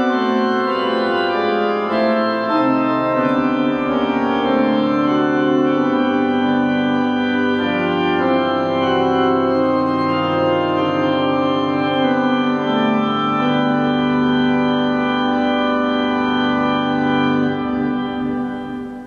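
Organ playing slow, sustained chords that change every second or so, fading away near the end.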